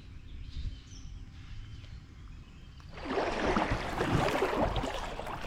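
Low wind rumble, then about three seconds in, irregular water splashing and sloshing as someone wades through a shallow river.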